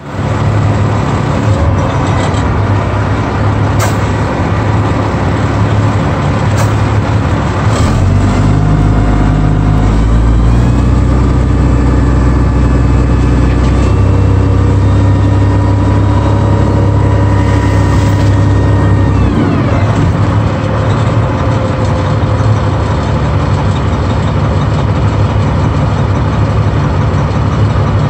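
Semi-truck diesel engine running under load while the side-dump trailer tips its load of gravel. The engine note rises about eight seconds in, holds, then falls away near twenty seconds, with a few sharp clicks in the first eight seconds.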